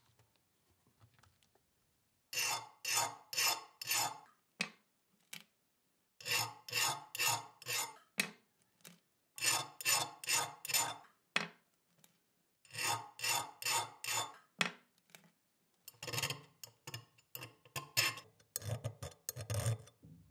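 Hardness-tester files scraped across a bare steel cleaver blade in short, quick strokes, about three a second, in six bursts of about five strokes each with short pauses between. Each file of the graded set is tried in turn to gauge the steel's hardness.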